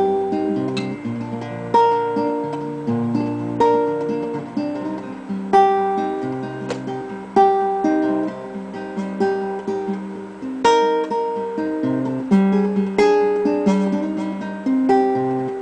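Classical acoustic guitar played with the fingers: a chord struck about every two seconds, with single notes picked and left ringing between them.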